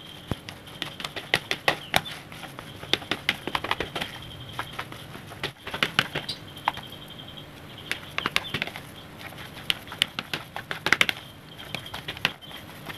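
Plastic spatula mashing crumbly steamed bait in a plastic bowl: irregular clicks, taps and scrapes as it presses the bait against the bowl. A thin steady high tone comes and goes in the background.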